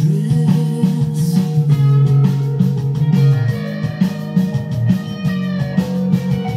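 Electric guitar playing a fast picked, arpeggiated riff.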